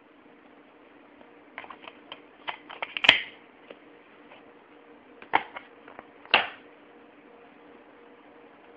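Plastic DVD case and disc being handled. A run of small clicks builds to a sharp snap about three seconds in, as the disc goes onto the case's hub, then two more plastic snaps about a second apart as the case is shut. A faint steady hum runs underneath.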